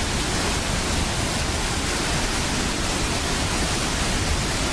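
Water pouring through a dam's opened floodgates: a loud, steady rush of falling water with no breaks.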